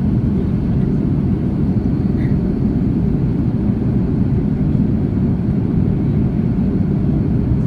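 Steady low rumble of jet engine and airflow noise inside an Airbus A330-300 airliner's cabin in flight, even and unchanging throughout.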